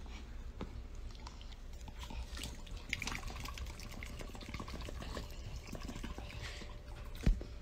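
Faint close-up rustling with many small soft clicks, like fur being rubbed and wet mouth sounds, as a dog is petted on the head; a single louder knock comes near the end.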